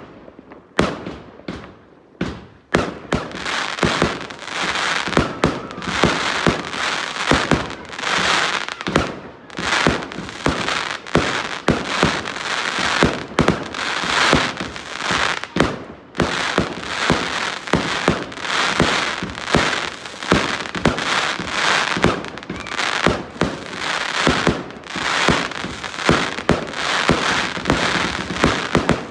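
Fireworks going off in rapid succession. A few separate sharp bangs come first, then from about three seconds in there is a dense, continuous crackle with bangs throughout.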